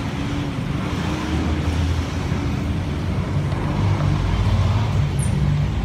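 Traffic on a busy city street: passing vehicles and a nearby engine running, its low hum growing louder about two seconds in.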